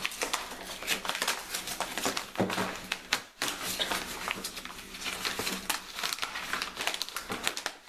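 Packaging of an action-camera mounting kit crinkling and rustling as it is torn open and handled by hand, with a brief pause about three seconds in.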